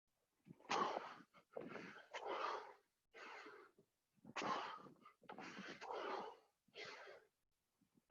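Heavy, hard breathing of a person exercising through a set of burpees: rough breaths in and out, one after another in quick groups with short pauses between.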